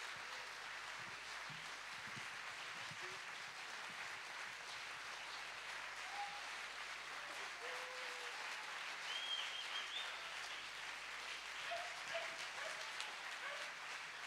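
Audience applauding steadily, with a few brief cheers and a whistle about nine seconds in.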